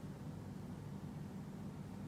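Faint steady low hum with light hiss: background room noise, with no handling sounds.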